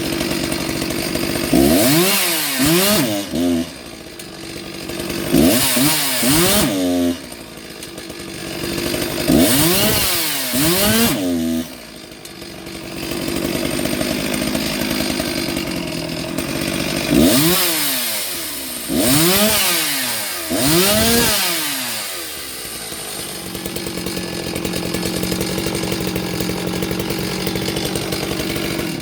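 Stihl 360 two-stroke chainsaw running at idle and revved up and back down several times, in short blips of two or three at a time, then left idling steadily.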